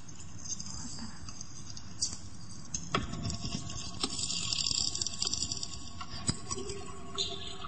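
Recording of air in 20,000-year-old ice expanding and escaping, heard through room loudspeakers: a fizzing crackle with scattered sharp pops, the loudest about three seconds in and again near six seconds.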